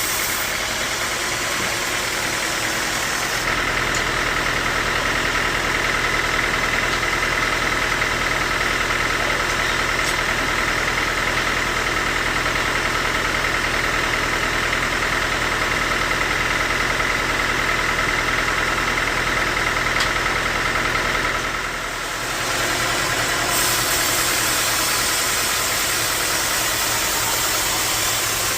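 Band sawmill running steadily. From about three seconds in until about 22 seconds in, a steady whine and a deep hum are added, as of the blade under load, before dropping back.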